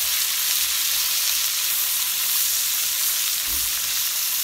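Sliced onions frying in hot olive oil in a wok, a steady sizzle as they are stirred with a silicone spatula while they soften toward light brown.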